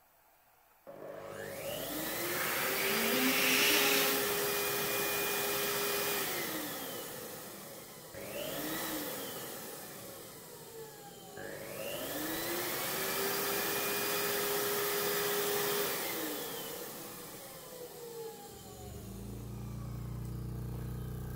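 Electric balloon pump running in bursts, its motor spinning up to a steady whine and winding down again. A long run is followed by a short burst, then another long run, and near the end it starts once more with a deeper hum.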